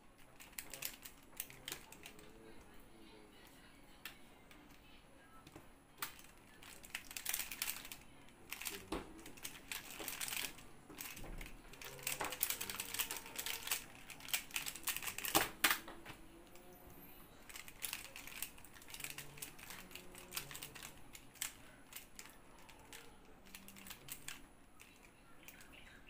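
Square-1 puzzle being turned by hand: its plastic layers click and clack in quick, irregular runs, thickest from about ten to sixteen seconds in.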